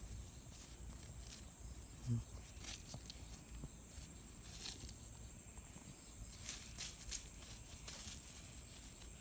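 A steady high-pitched drone of an insect, with scattered crackling and scraping of dry leaf litter and hard soil being worked by hand as earthstar mushrooms are dug out.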